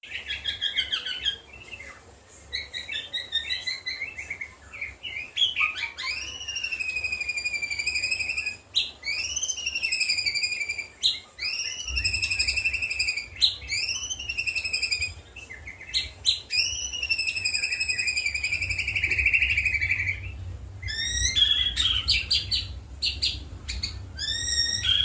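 White-rumped shama (murai batu) singing a varied, loud song. It repeats one whistled phrase that sweeps up and then slides down, again and again, between trills and a buzzy stretch, in the mimicry-filled style its keepers call isian.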